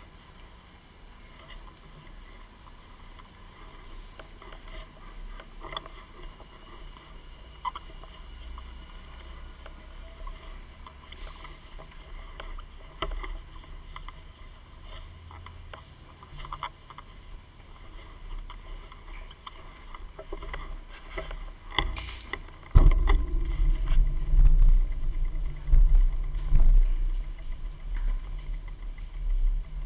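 Muffled background noise of a crowd walking through a station passage, with scattered short knocks and clicks. About two-thirds of the way in, a loud low rumble sets in suddenly and stays.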